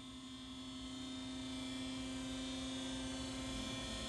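Bekamak BMSY 320 DGH double-mitering metal bandsaw running after being switched on at its control panel, a steady electric-motor hum while the saw head swivels to a miter angle. Its pitch dips slightly near the end.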